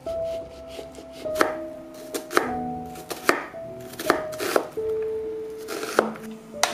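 Chef's knife cutting and dicing an onion on a wooden cutting board: the blade knocks on the board about eight times, unevenly spaced. Soft background music with held notes plays throughout.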